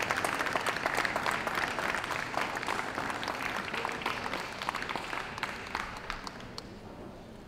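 Audience applauding: a dense patter of many hands clapping, loudest over the first few seconds and dying away toward the end.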